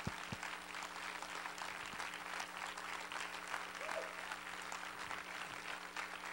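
Congregation applauding steadily, many hands clapping at once, over a faint steady low hum. Two soft low thumps come right at the start.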